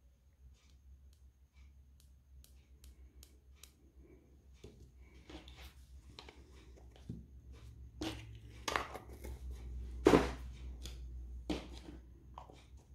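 Faint clicks and light taps of small nail tools and a practice nail tip being handled over a paper towel, growing busier about halfway, with a few sharper knocks in the second half.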